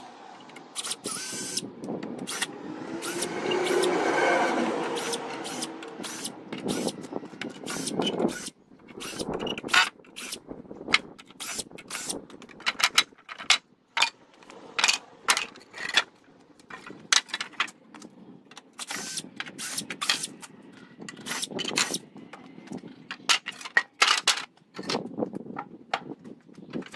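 Wooden pallet boards knocking and clattering against each other and the concrete floor as they are handled: a long irregular string of sharp wooden knocks. A louder droning sound swells and fades over the first few seconds.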